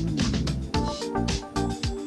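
Background music with a steady beat, bass and plucked guitar-like notes.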